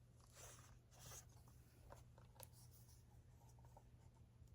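Near silence, with a few faint paper rustles from the pages of a picture book being handled and turned.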